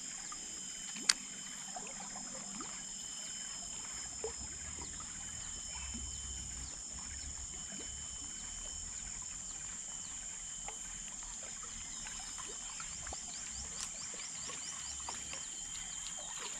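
Steady high-pitched drone of insects, with a few faint clicks and ticks, one sharper click about a second in and a quick run of ticks near the end.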